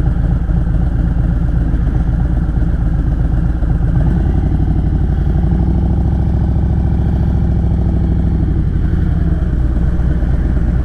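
Harley-Davidson Road Glide's V-twin engine running under way, a steady low pulsing rumble whose note changes about four seconds in and again near the end.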